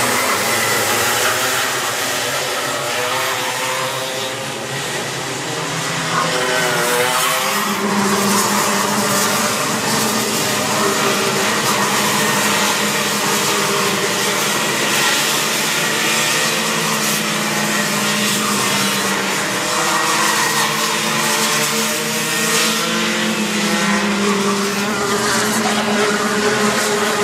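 A pack of Rotax 125cc two-stroke kart engines racing past, several engines at once, their notes rising and falling as the karts brake for corners and accelerate out. From about eight seconds in, one steadier engine note stands out above the rest.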